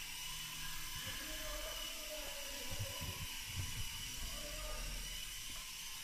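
Syma S107 toy RC helicopter in flight: its small electric motors and coaxial rotors give a steady high whine and whir. A few low bumps come near the middle.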